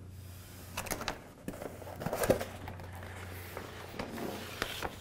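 Hands handling laminating film and tape: light plastic rustling with a few soft clicks and knocks, over a faint steady low hum.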